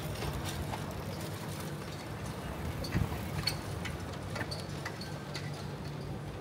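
Street ambience on foot: a steady low hum with scattered, irregular sharp clicks and taps, about ten in all, the loudest a pair of knocks about three seconds in.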